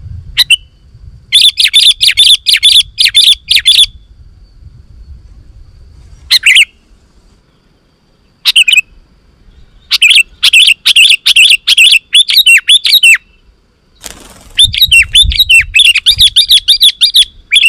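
Sooty-headed bulbul calling vigorously: three bursts of rapid, repeated chattering notes, each about three seconds long, with single short calls in between.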